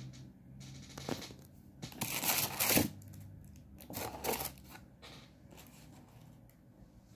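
Printed cards, flyers and bookmarks being handled and shuffled: papery rustles about a second in, a longer, louder rustle from about two seconds in, and another shorter one about four seconds in.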